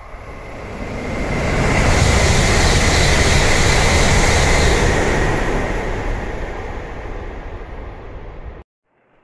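N700-series Shinkansen train passing through the station at speed: a loud rushing noise of wheels and air with a steady high whine. It swells over about two seconds, stays loud, then eases off and cuts off abruptly near the end.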